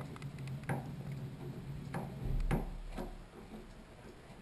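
A screwdriver clicking against a shower valve's metal stop as it is turned to shut off the hot water: a few scattered light ticks.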